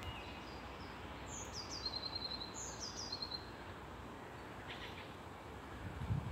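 A songbird singing a few short, high, falling notes and a rapid trill, over a steady outdoor background hum. A couple of low thumps come near the end.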